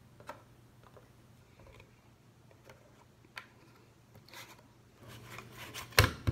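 Foam magnet shapes being pulled off and handled on a metal baking tray: scattered light clicks and taps, then one sharp knock near the end as the tray is moved.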